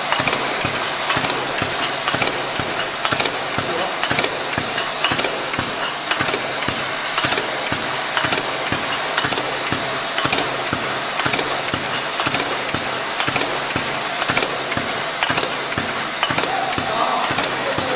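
Automatic actuator button placing machine for aerosol cans running, with a rapid, irregular stream of clicks and knocks, a few a second, over a steady mechanical noise.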